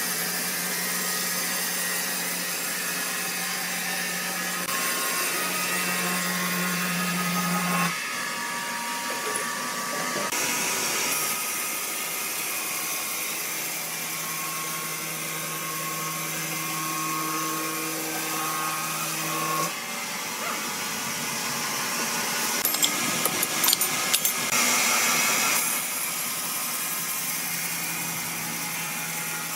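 Sawmill machinery running: a steady motor hum with the hiss of sawing, changing character abruptly several times, with a short clatter of knocks about 23 seconds in.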